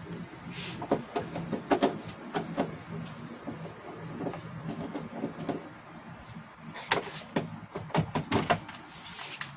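Scattered clicks and knocks of a screwdriver and hands working on the plastic back cover of a flat-panel TV as its screws are taken out, with a quicker run of sharper clicks near the end.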